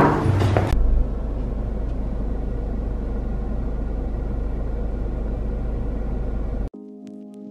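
Steady low outdoor rumble with a faint even hiss over it. A music track cuts off just after the start, and soft ambient music comes in near the end.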